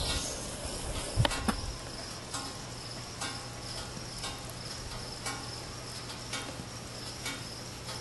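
Insects chirring steadily in a high trill, with faint ticks about once a second and a low steady hum underneath.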